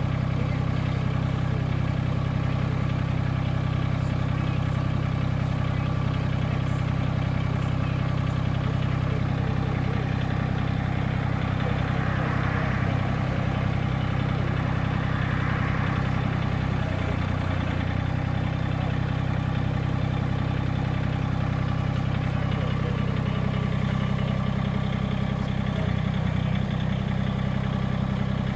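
Massey Ferguson GC1710 sub-compact tractor's three-cylinder diesel engine running at a steady speed while the backhoe is worked. There is a brief noisier stretch around the middle, and the engine note shifts slightly twice later on.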